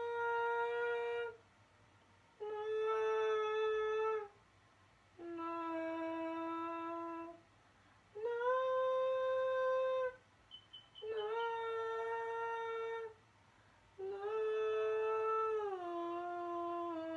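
A person humming a slow melody in long held notes, each about two seconds with short pauses between; the last note slides down to a lower pitch.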